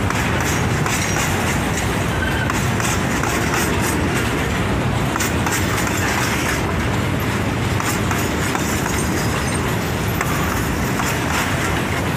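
Freight train of boxcars and covered hopper cars rolling past close by: a steady rumble of steel wheels on rail, with frequent clicks and clanks from the wheels and couplings.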